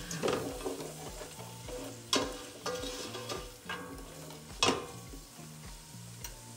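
Chopped onion sautéing in butter with bacon bits, sizzling steadily in the pot while a utensil stirs and scrapes the bottom, with a few sharp scrapes and clinks against the pot, the loudest about two seconds in and again near four and a half seconds.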